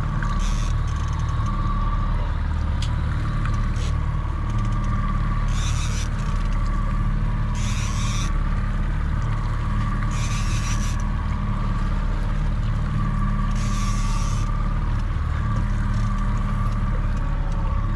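Boat engine running steadily at trolling speed, a low drone with a steady whine above it. Short hissing bursts come every few seconds over the top.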